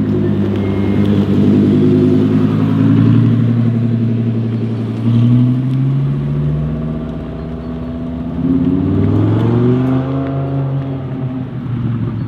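Audi R8 V10 Performance's V10 through a Capristo straight-pipe exhaust, running loud under throttle. The note jumps up about five seconds in, sinks, then climbs in a rising rev from about eight and a half seconds before easing off.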